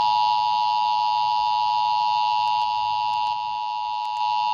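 Emergency Alert System two-tone attention signal: two steady pitches sounding together in a continuous electronic tone, as broadcast in a required monthly test.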